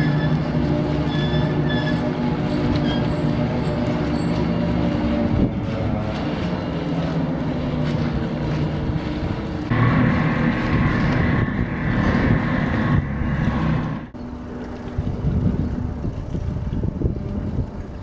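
Movable bridge drive machinery running as the bridge closes: a steady mechanical hum with a rumbling, rail-like grind. It cuts off suddenly about fourteen seconds in.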